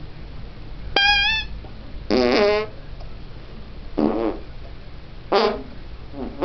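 Fake fart noises made with the hands: four short blasts, each a pitched, buzzy squeak.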